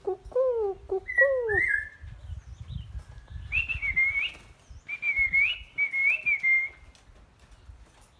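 Songbird singing: three quick falling notes in the first second and a half, then a run of warbled, whistled phrases in the middle.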